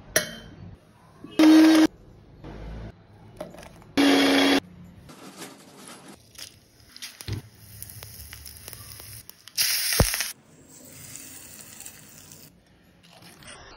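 Mixer grinder whirring in two short pulses about two and a half seconds apart. Later comes a loud burst of sizzling as tempering spices hit hot oil, settling into a steady hiss.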